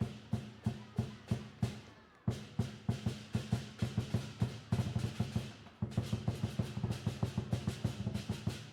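Drum music: a steady run of sharp drum strokes, about four a second, that breaks off briefly about two seconds in and turns quicker and denser from about six seconds on.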